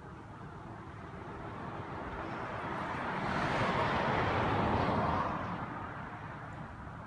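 A vehicle passing: a rush of noise that swells, is loudest about four to five seconds in, then fades away.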